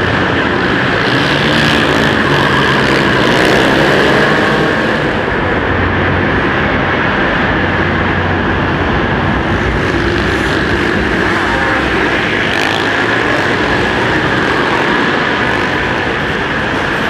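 Several supermoto quad bikes racing together, their engines running hard with revs rising and falling as riders accelerate and back off.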